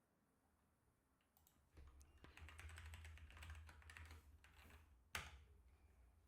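Faint typing on a computer keyboard: a quick run of key clicks for about three seconds, ending in one louder keystroke.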